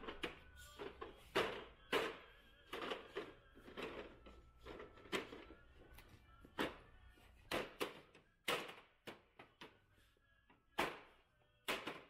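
Irregular knocks and thunks, about a dozen, as hands press and tap the rim pieces of an automatic mahjong table's top into place.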